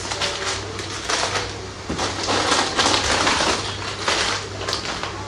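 Crinkly packaging of hair-clip packs rustling and crackling as they are handled, busiest in the middle, over a steady low hum.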